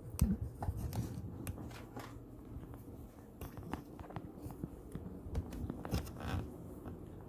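A phone being handled and moved about close to its microphone: scattered small clicks, knocks and scrapes.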